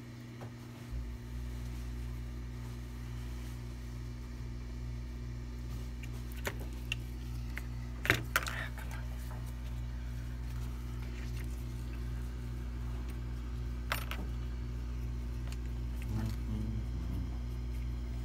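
Hot-air rework station's blower switching on about a second in and running as a steady low hum, with a few sharp metallic clicks, the loudest about eight seconds in.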